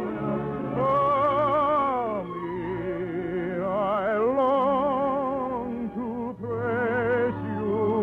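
A soprano voice singing long held notes with a wide vibrato over an orchestra, in operetta style. The sound is thin and dull, with nothing above about 4 kHz, as on an old radio transcription.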